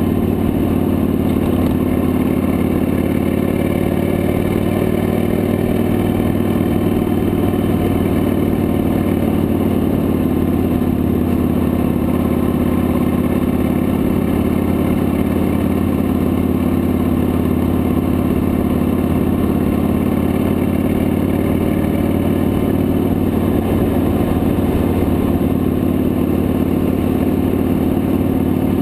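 Victory High Ball motorcycle's V-twin engine running steadily at highway cruising speed, its pitch shifting only slightly, heard from the handlebars.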